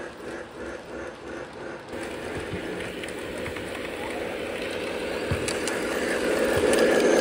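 A Lionel Hallow's Eve O gauge toy steam train running along its track: a rhythmic pulse of about three beats a second, then a steadier rumble with a few clicks that grows louder toward the end as the train comes close.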